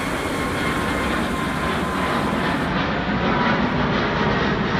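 Jet airliner engines running: a steady rush with a thin high whine, getting slightly louder.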